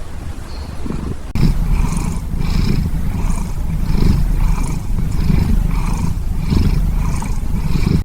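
Sleeping orange tabby cat snoring: a rough, rumbling breath sound pulsing about every two-thirds of a second. It jumps suddenly louder a little over a second in.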